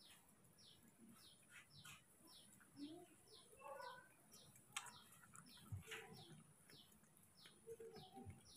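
A small bird chirping steadily and faintly, short high chirps that drop in pitch, about two a second.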